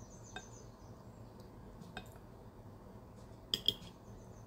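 Cutlery clinking against a plate during a meal: a light tap, another about a second and a half later, then two sharper clinks in quick succession about three and a half seconds in.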